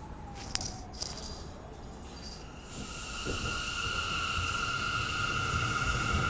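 A subway train, an R179, coming in: from a little under three seconds in, a steady high-pitched wheel squeal with a rushing rail hiss grows louder. Before it, a falling siren-like tone fades away, and two sharp clicks sound about half a second and one second in.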